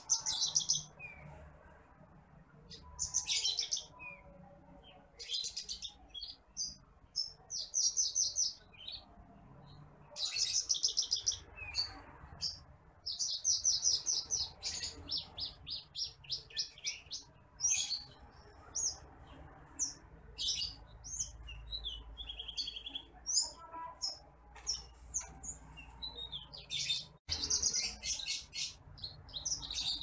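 Branjangan apung (titimplik), a small ground-dwelling field songbird, singing in bursts of rapid, high chirps and trills. The phrases vary and are separated by short pauses.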